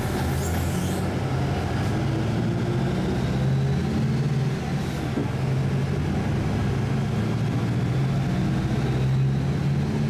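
Steady low drone of a motor vehicle's engine and road noise, heard from inside the cabin while driving along.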